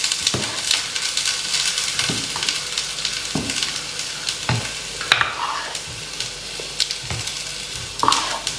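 Wooden spoon stirring thick mung bean dosa batter in a glass bowl: a steady wet swishing with light knocks of the spoon against the glass every second or so.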